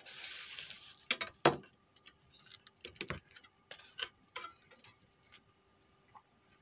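Car stereo's sheet-metal chassis and circuit board being handled: a short scraping rustle, then scattered sharp clicks and knocks that grow fainter toward the end.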